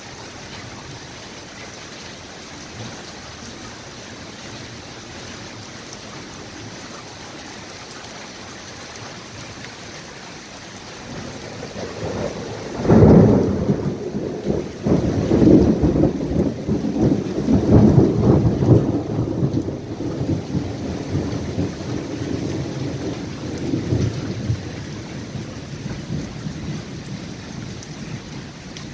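Steady rain falling, then about eleven seconds in thunder builds to a sharp, loud crack and rolls on in repeated rumbles for several seconds before fading, the rain continuing underneath.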